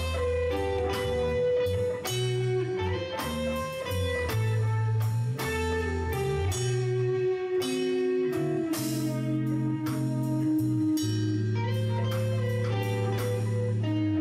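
Instrumental progressive rock trio playing: an electric bass holding long low notes, a drum kit with regular drum and cymbal strokes, and an electric guitar playing pitched lines above.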